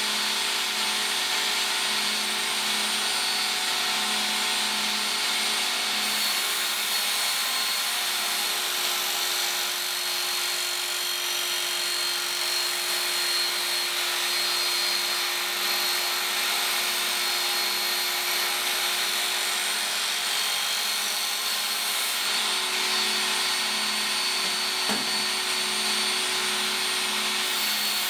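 Work Sharp Ken Onion Edition electric belt sharpener running steadily, its worn coarse abrasive belt grinding along a steel machete blade with a constant motor hum and hiss. The grinding hiss shifts a couple of times as the blade is moved along the belt.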